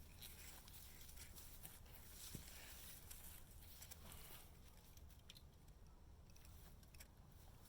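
Near silence: faint rustling with scattered light ticks and clicks.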